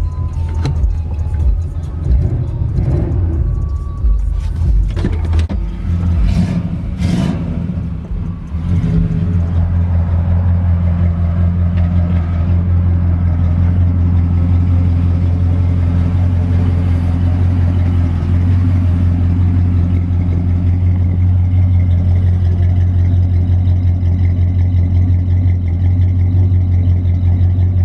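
Chevrolet Caprice's 305 (5.0 L) V8 idling steadily through its dual exhaust, close to the tailpipes, freshly tuned up with new spark plugs and wires and running smooth. Uneven shuffling and a few knocks come in the first several seconds, and about nine seconds in the sound settles into a steady, deep idle.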